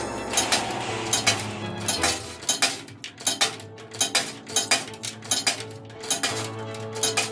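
Coins being fed one after another into a claw machine's coin slot, clinking as they drop through the mechanical coin acceptor: a rapid, irregular series of sharp metallic clinks.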